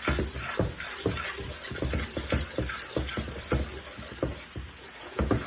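Stirring in a mixing bowl: short knocks come a few times a second, over a steady hiss of food frying.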